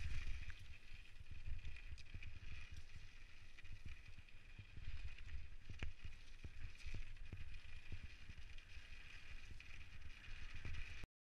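Specialized Stumpjumper mountain bike running fast down a gravel forest trail: a steady low rumble of tyres over dirt and stones with frequent sharp clicks and rattles from the bike. The sound cuts off suddenly near the end.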